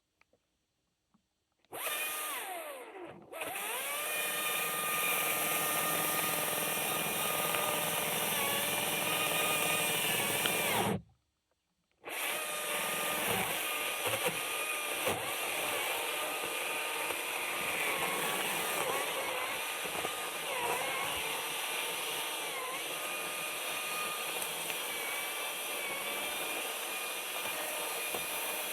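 Husqvarna 540i XP battery chainsaw's electric motor running in two long spells about a second apart, its whine wavering in pitch.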